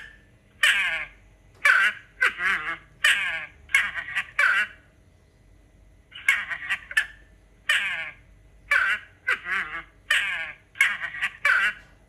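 North American porcupine calling: a dozen or so short calls, each under half a second, coming in quick runs of two or three, with a pause of about a second and a half around the middle.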